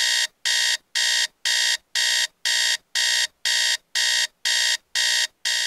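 iPhone alarm going off: a run of identical electronic beeps, about two a second, each the same bright, steady tone.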